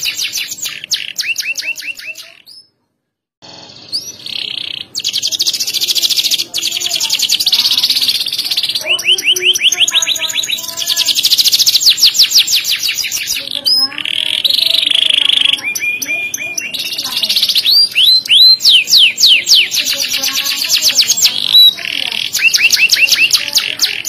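Yellow domestic canary singing a long, loud song of rapid trills, one fast run of repeated notes passing straight into the next, with rising sweeps here and there. The song breaks off for about a second near the start, then runs on without pause.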